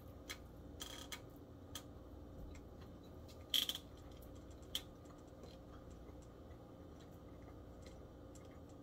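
A few faint clicks and taps of someone eating a meal, the loudest a short cluster about three and a half seconds in, then only quiet room tone.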